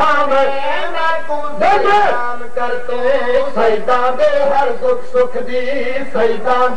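A man's voice chanting a devotional qasida recitation in long, drawn-out melodic lines, with the pitch sliding between held notes.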